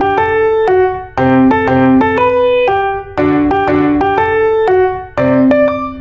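Background piano music: a melody of quick struck notes, the phrase starting over about every two seconds.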